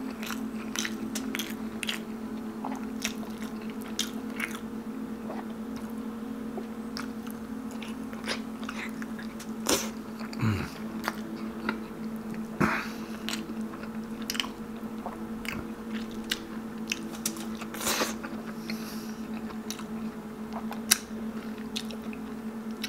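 Close-miked chewing of soft, slow-boiled pork trotter (pata) stewed as balbacua, with wet mouth clicks, lip smacks and finger-sucking throughout and a few louder smacks. A steady low hum runs underneath.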